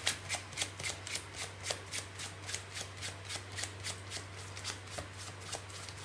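A deck of playing cards being shuffled by hand, in a steady run of soft card snaps at about three a second that thins out in the middle, over a faint electrical hum.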